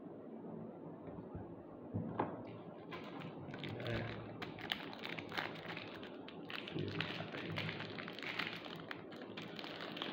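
Handling noise from swapping one cigar for the next: a run of light taps, knocks and rustling that begins about two seconds in and carries on irregularly.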